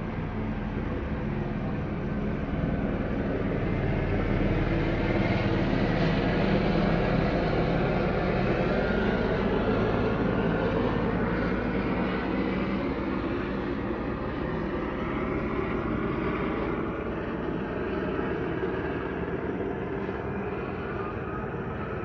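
Police helicopter overhead, a steady drone of rotor and engine that grows louder a few seconds in and then slowly eases off.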